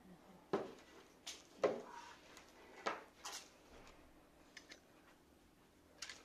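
A scattered series of brief clicks and rustles as strings of LED fairy lights and their small plastic switch boxes are handled, the other string being switched off. The loudest rustle comes about one and a half seconds in.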